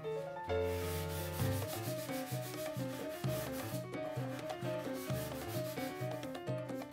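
Sandpaper rubbed by hand along the edge of a wooden cabinet in quick back-and-forth strokes, touching up the edge. Background music with a steady beat plays along with it.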